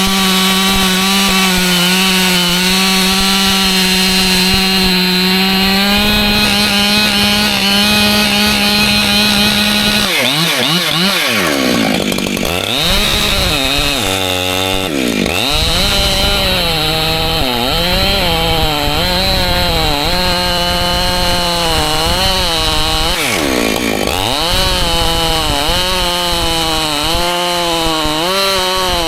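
Husqvarna two-stroke chainsaw running at high revs, cutting white oak. The engine note holds steady at first, then dips and climbs back twice, about ten seconds in and again past twenty, as the throttle eases and picks up again.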